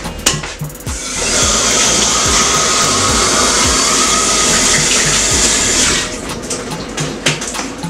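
Kitchen tap running in a steady stream, turned on about a second in and shut off about five seconds later.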